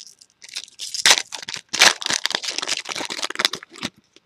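A foil trading-card pack wrapper being torn open and crinkled in the hands, a dense run of crackling that stops shortly before the end.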